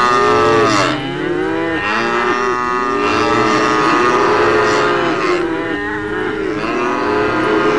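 A herd of cows mooing together, many long calls overlapping one another without a break.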